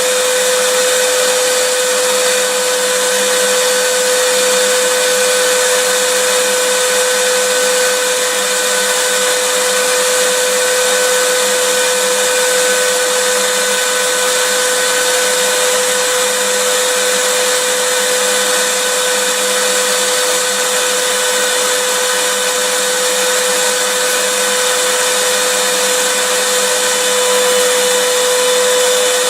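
Vacuum cleaner running steadily: a loud, even rushing hiss of the motor and airflow with a constant hum-like whine through it.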